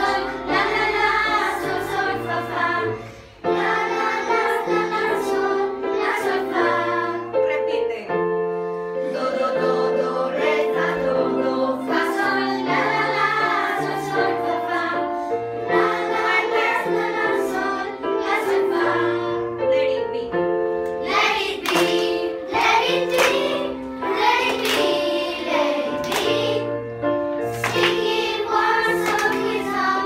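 A group of children playing electronic keyboards together in unison and singing along, a melody over changing bass notes, with a short break about three seconds in.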